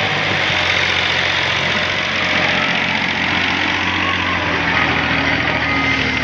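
Massey Ferguson tractor's diesel engine running loud and steady at a constant speed while hitched to a fully loaded trolley.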